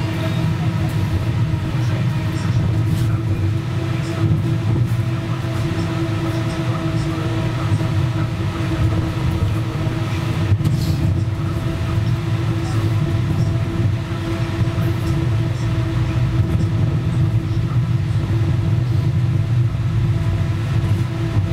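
Onboard sound of a 71-911EM 'Lvyonok' low-floor tram running at a steady speed: a constant low rumble of wheels on the rails with a steady electric whine.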